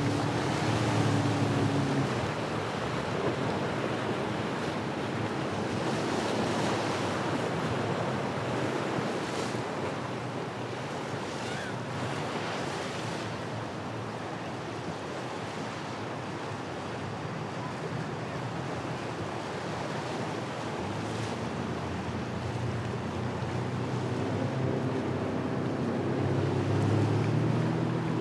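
Waves and surf washing, with wind buffeting the microphone. A boat engine drones for the first couple of seconds, then fades, and another builds up near the end.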